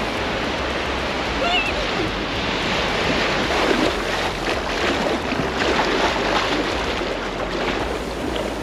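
Shallow seawater splashing as a person wades in and starts swimming, over the steady wash of small waves. The splashing is strongest through the middle.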